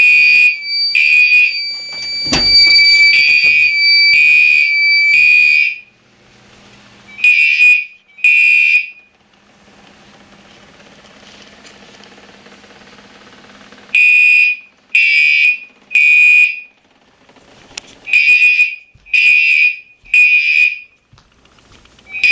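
Fire alarm horns, Gentex Commander 3s, sounding in repeated short blasts on California code: about ten seconds of blasting, a five-second pause near the middle, then the blasts resume. A steady high tone runs under the first few seconds, with a single thump about two seconds in.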